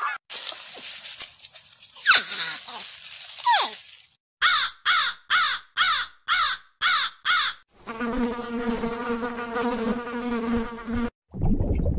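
A run of separate animal sound clips. First comes a high hiss with two falling calls, then seven short calls about two a second. Last is a steady buzzing tone that cuts off a second before the end.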